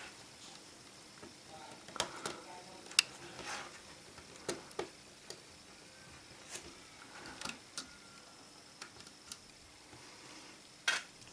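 Faint, scattered sharp clicks and taps of small repair tools against the iPhone 4's internal parts while prying off the back camera, with soft scraping between them; the sharpest click comes near the end.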